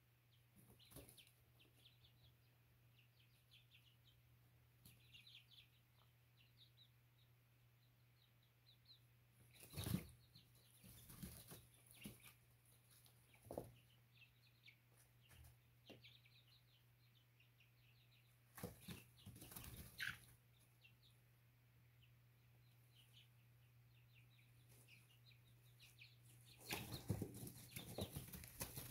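Young chicks peeping softly in a brooder, with several short bursts of wing flapping and scuffling in wood shavings as they spar. The longest and loudest burst comes near the end. A steady low hum runs underneath.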